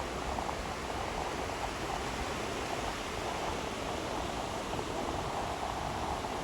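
Waves washing on a beach: a steady, even rush of surf with no single break standing out.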